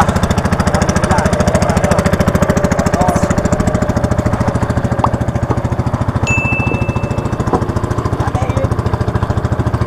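Small single-cylinder stationary engine pushing an outrigger fishing boat under way, running steadily with a fast, even chugging beat.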